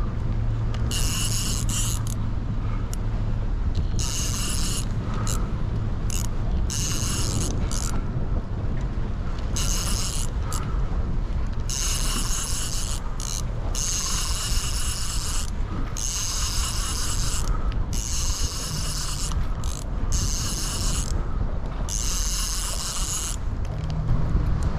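Conventional fishing reel's drag buzzing as line is pulled off the spool in repeated runs of half a second to two seconds, with short pauses between: a big fish taking line.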